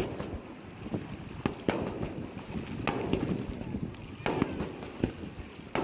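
Fireworks exploding: sharp bangs about every second or so, with crackling between them.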